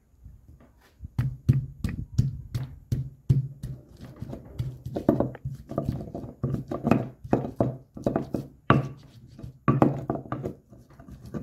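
Stone pestle striking and grinding garlic cloves in a volcanic-stone molcajete: a run of sharp stone-on-stone knocks about three a second, turning into heavier, longer crushing strokes about halfway through as the garlic is mashed.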